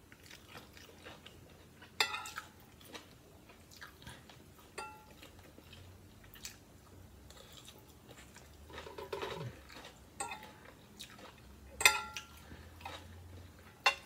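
Quiet chewing of a mouthful of shrimp and rice, with a metal spoon and fork clinking against a glass plate a few times; the sharpest ringing clinks come about two seconds in and near the end.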